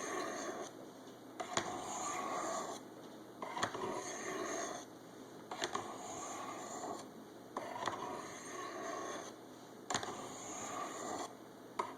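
Knife blade drawn down the flat faces of medium-grit ceramic Sharpmaker rods in alternating strokes, one side then the other. Each stroke is a rasping scrape about a second long that starts with a small tick as the edge meets the rod, about one every one and a half seconds, some seven strokes in all.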